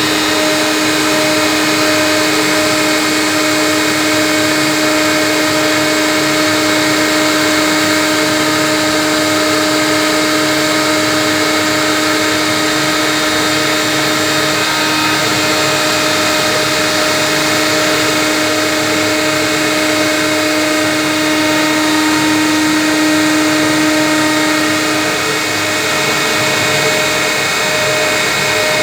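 CNC router spindle running steadily while cutting acrylic sheet: a constant whine of several steady tones over an even cutting hiss.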